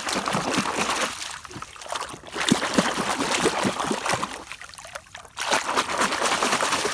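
Water trickling and splashing as a muddy toy bullet train is washed by hand, with small knocks of the toy being handled; the water sound eases off twice.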